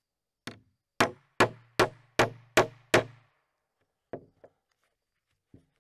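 Claw hammer pounding a steel fabric hole punch through canvas on a wooden table: a light tap, then six hard blows in quick, even succession about 0.4 s apart, each with a short low ring from the table. A few light knocks follow near the end.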